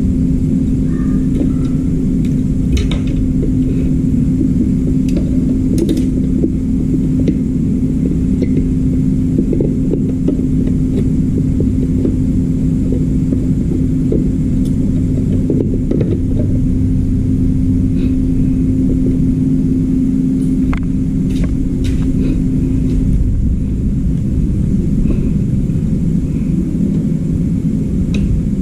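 A steady low mechanical rumble with a constant hum that drops out about two-thirds of the way through, over scattered light clicks and knocks of parts being handled.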